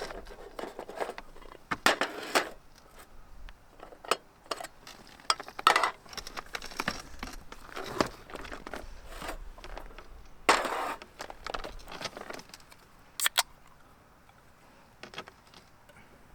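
Irregular clinks, clicks and short scrapes of cooking gear being handled at a skillet over a small wood fire, with a longer scrape or rustle about ten seconds in and a quick double click a few seconds later.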